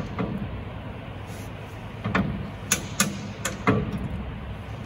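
Sharp metallic clicks and knocks from the steel jacking trestle and jack under the Lancaster bomber's tail as the tail is jacked up, about five in the second half, over a steady low hum.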